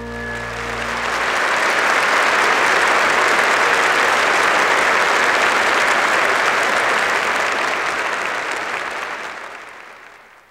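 Church congregation applauding. The applause swells over the first couple of seconds, holds steady, then fades out near the end, while the last held chord of the music dies away in the first second.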